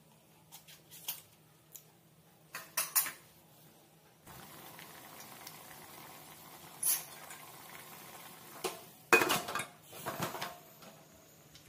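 A few sharp metal clicks and knocks on an aluminium pressure cooker, then rice and lentils bubbling at a rolling boil with a steady hiss. About nine seconds in, a loud metallic clatter as the Pigeon pressure cooker's lid is set on and closed.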